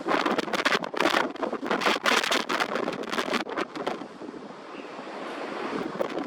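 Strong southerly wind on the back side of a passing typhoon, about 12 m/s, buffeting the microphone in gusts. It eases to a steadier rush about four seconds in.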